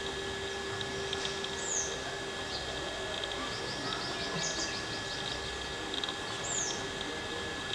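Small birds calling in the background: a few short, high, down-slurred chirps and, about three and a half seconds in, a quick high trill, over a steady low hum.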